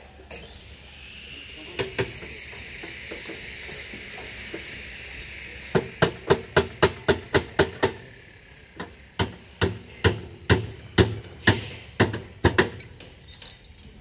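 Hammer blows on steel column formwork: a fast run of sharp metallic strikes, about four or five a second, starting about six seconds in and easing to a slightly slower run before stopping near the end.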